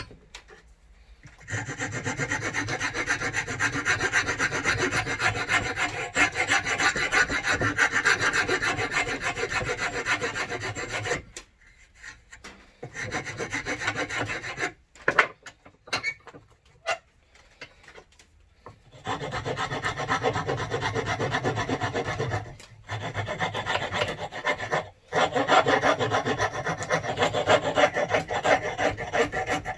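Hand file scraping rapidly back and forth across a 19 mm plywood offcut, shaping its edges, in two long spells. Between the spells, filing stops for several seconds with a few short knocks.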